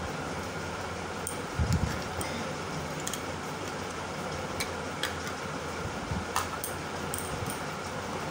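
Steady mechanical hum like a running fan, with scattered small clicks and taps as jewellery and its boxes are handled, and a soft low thump about one and a half seconds in.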